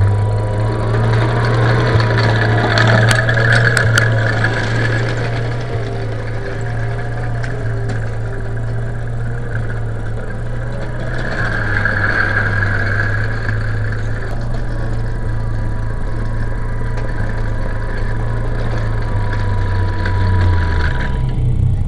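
Benedini sound unit in a 1/6-scale King Tiger RC tank playing its simulated tank-engine sound through a loudspeaker: a steady, loud, low running note. A higher whine swells twice as the tank drives, and the engine note changes just before the end.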